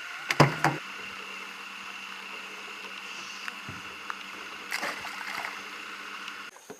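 Several sharp knocks on a small fishing boat in the first second, with a few lighter knocks near the end. Under them runs a steady hum, which cuts off suddenly just before the end.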